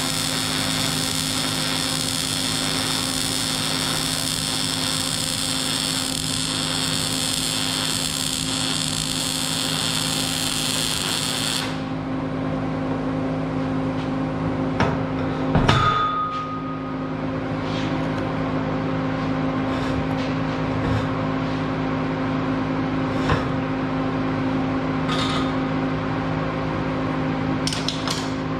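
Wire-feed (MIG) welder arc crackling steadily as a bead is run on a steel pipe, cutting off abruptly about twelve seconds in. A steady low hum carries on throughout; a few seconds after the arc stops comes a loud metal clank that rings briefly, then a few light taps and clicks.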